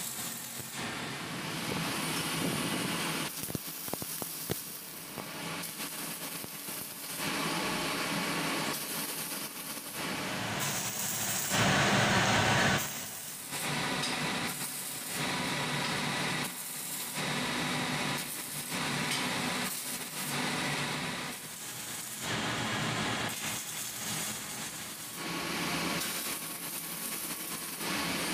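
Electric arc welding on steel fence bars: the crackling sizzle of the arc comes in a run of short welds, each a second or two long, with brief pauses between them. The loudest weld comes about twelve seconds in.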